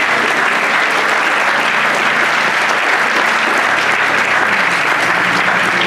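Congregation applauding steadily, a dense continuous clapping.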